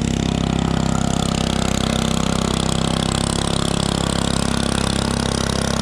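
Small engine running steadily at a constant speed, with an even, rapid pulse.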